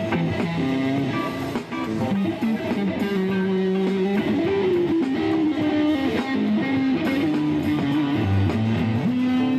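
Tele-style electric guitar with two single-coil pickups (Sunsmile STL 100 BNA), played through an amplifier: a melodic line of picked single notes, some held, with a few notes bent or slid upward.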